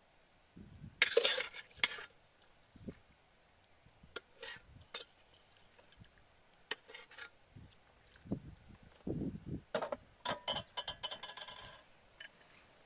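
Metal spoon scraping and clinking against a bowl of fish soup as it is stirred and scooped. There is a loud clatter about a second in, scattered single clicks, and a quick run of ringing clinks near the end.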